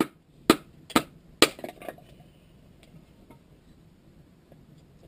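Four sharp knocks or snaps about half a second apart, then a quick run of smaller clicks and a few faint ticks.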